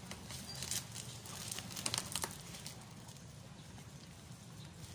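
Scattered sharp clicks and taps of a package being handled and unboxed, bunched in the first couple of seconds, over a low steady hum.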